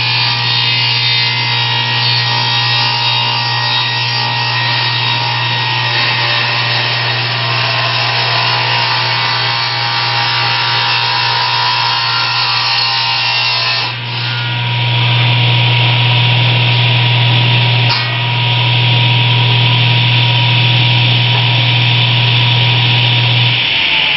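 An old Craftsman table saw running, its electric motor giving a steady hum under the blade's noise. Near the end the hum stops and a whine falls away as the saw winds down.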